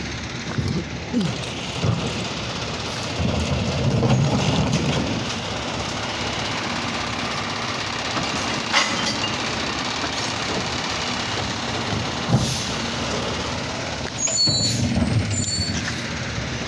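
Automated side-loader garbage truck running close by: steady engine and machinery noise, with a couple of sharp clanks and brief high squeaks near the end.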